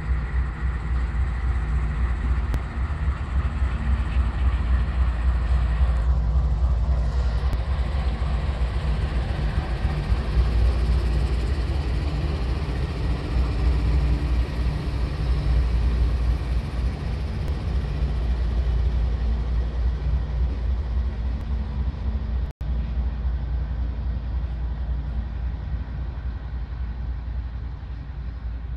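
Two CSX GE AC4400CW diesel-electric locomotives passing close by, their engines running under a steady heavy rumble, followed in the second half by autorack freight cars rolling past on the rails.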